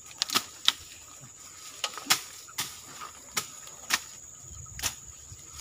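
Footsteps pushing through dry undergrowth, with about nine sharp snaps and crackles of twigs and dead leaves at irregular spacing. Under them is a steady high-pitched insect drone.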